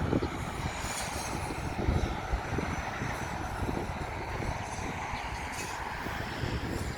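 Wind buffeting the microphone in irregular low gusts over a steady roar of sea surf.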